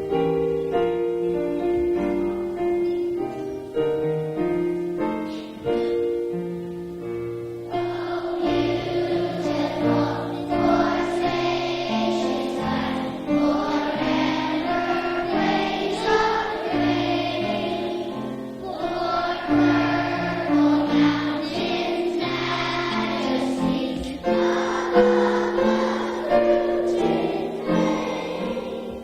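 A piano introduction of about eight seconds, then a group of children singing a song together with the piano accompanying.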